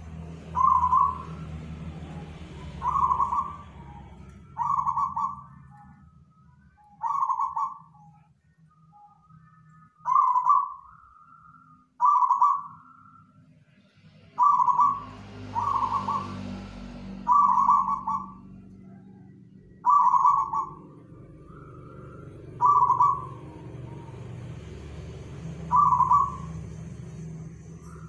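Zebra dove (perkutut), a local strain, cooing: about a dozen short phrases of mellow notes, repeated every two to three seconds.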